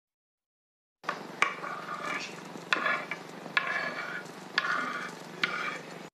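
Dry crushed instant ramen noodles and mix-ins rattling inside a glass bowl capped with a wooden cutting board as it is shaken to mix them. Starting about a second in, there are five sharp knocks about a second apart, each followed by a short rattle.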